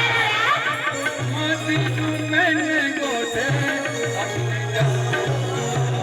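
Adivasi folk music from a Songadya troupe: hand drums keep a rhythm under a wavering melodic lead, over a low bass line that steps between notes.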